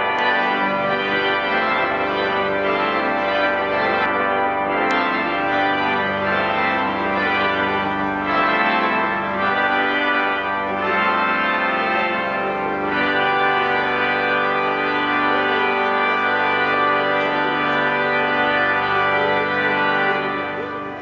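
Organ playing sustained chords as processional music for the academic procession, fading out near the end.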